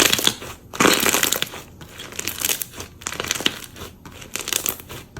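Slime packed with plastic Perler beads being squeezed and pressed by hand: dense, irregular crackling and clicking in bursts, loudest about a second in.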